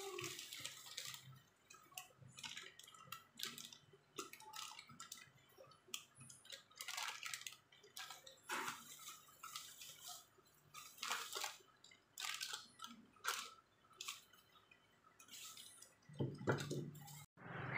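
Plastic bubble wrap and thin plastic bags crinkling and rustling in irregular bursts as they are handled and pulled open. Near the end a steady low hum sets in.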